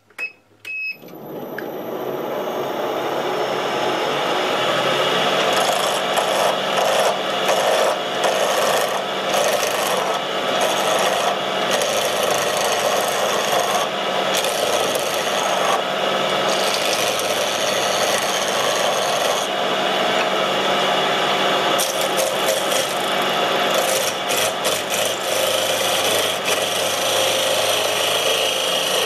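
Wood lathe switched on and spinning up in the first couple of seconds, then a turning tool cutting a square pine blank. The motor's steady hum sits under continuous rough scraping and cutting noise.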